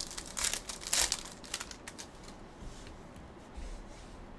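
Freshly opened foil pack of 2021-22 Panini Revolution basketball cards being handled: the wrapper crinkles and the cards slide and rustle in the hands. There are a few sharper rustles in the first two seconds, then softer handling.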